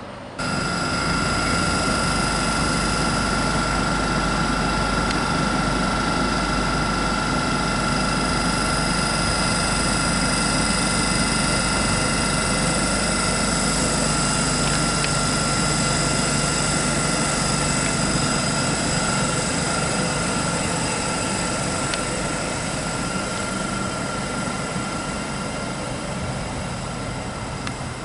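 LNER Class 801 Azuma electric train running past the platform close by: a steady rumble with several high, steady whining tones from its electric traction equipment.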